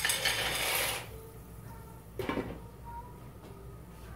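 Dry penne pasta poured from a plate into a pot of boiling water: a rattling, hissing pour lasting about a second. A short clink of the glass lid being set back on the pot follows a little after two seconds in.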